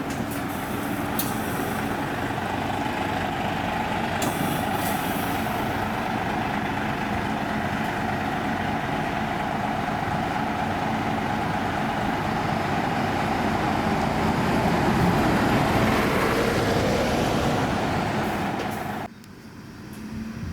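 Diesel bus engine and tyre noise as a shuttle bus moves past close by. It builds to its loudest a few seconds before the end, then drops off sharply.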